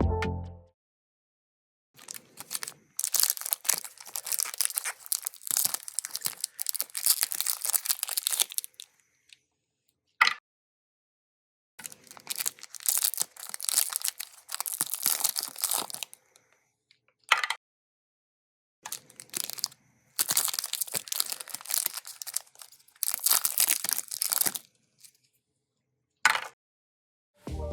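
Plastic candy wrappers crinkling and tearing as they are opened by hand, in several separate bursts of a few seconds each with dead silence between them.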